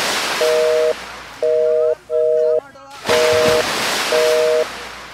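A telephone busy-signal tone: a steady two-tone beep sounding five times, about once a second, over two surges of hissing noise.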